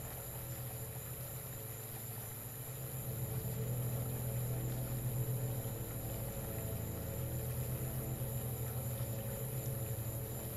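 Steady low electronic drone that swells about three seconds in and then holds, with a thin high whine and hiss above it.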